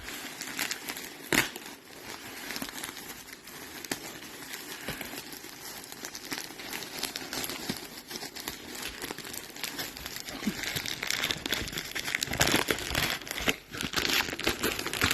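Packaging being unwrapped by hand: continuous crinkling and rustling of wrapping material with small crackles and a sharp crack about a second and a half in. It grows louder near the end.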